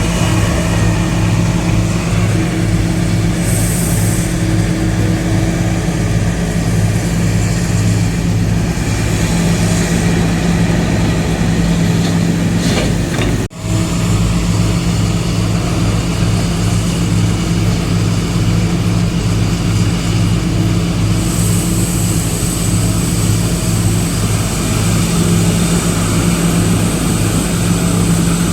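Heavy construction machine's diesel engine running steadily, with a low, regular throb. The sound cuts out for an instant about halfway through.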